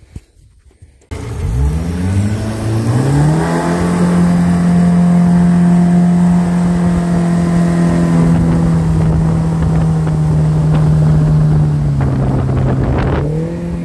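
40 hp Mercury outboard jet running an aluminum jet boat, heard from on board close to the motor. It cuts in about a second in and climbs in pitch as the boat accelerates. It then runs steady at speed over the rush of water, and eases off slightly near the end.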